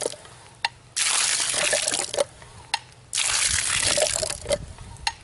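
Water gushing from the spout of a pitcher hand pump in surges, one with each stroke of the handle, twice, with short clicks in the gaps between. The pump is flushing the dirty water out of a newly dug well.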